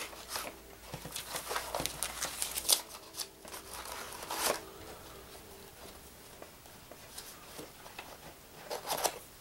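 Paper play money and cards being handled on a wooden table: scattered rustles and light taps, busiest in the first half, with one sharper tap about halfway through.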